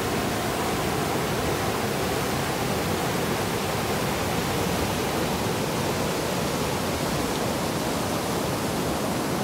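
Steady rush of whitewater river rapids, water churning and pouring over rocks.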